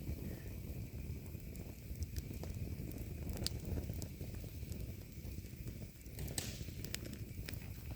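Campfire burning, a steady low rumble of flames with scattered sharp pops and crackles and a short hiss about six and a half seconds in.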